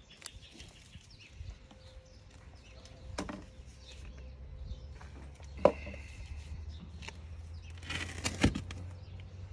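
Handling sounds of potting soil and a flower pot: three sharp knocks, the loudest a little past halfway, and a short scrape near the end, over a low steady hum.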